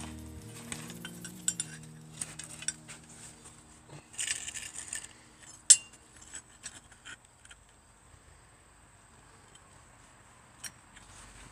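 Steel parts clinking and clanking as they are handled and set down on concrete: scattered light metallic taps, a short scrape about four seconds in, and one sharp, loud clank a little after the middle.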